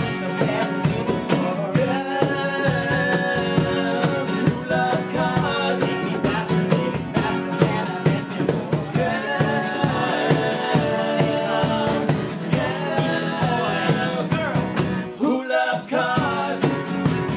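Live rock band playing an upbeat song with electric guitar, keyboard and a steady drumbeat, with a lead vocal over it. The bass and drums drop out briefly about two seconds before the end.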